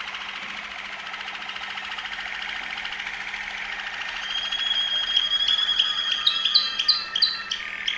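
Waterslager Malinois canary singing: a fast rolling trill, then, about four seconds in, a long clear whistle followed by a run of short, separate piping notes that grow louder.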